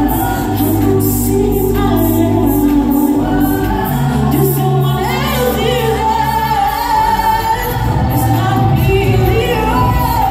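A group singing, with a female lead voice over held low notes and a steady beat.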